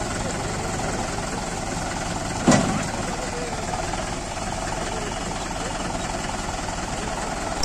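Diesel engines of a Mahindra 575 DI tractor and a JCB 3DX backhoe loader running steadily at idle, with a single sharp loud knock about two and a half seconds in.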